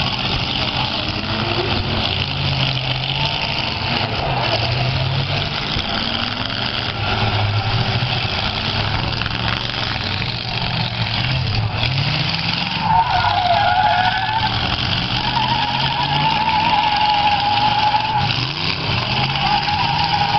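Demolition derby cars' engines revving up and down, with a wavering tyre squeal from wheels spinning on the pavement from about a third of the way through.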